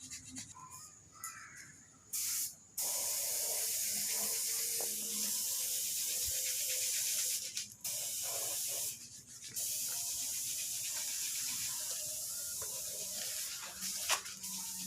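Spray paint hissing out of a nozzle in bursts: a short puff, then long sprays broken by brief pauses.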